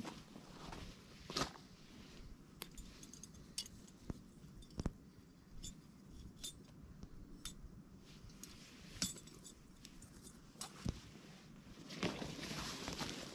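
Small metal camping gear being handled: scattered, irregular light clicks and clinks, with rustling near the end.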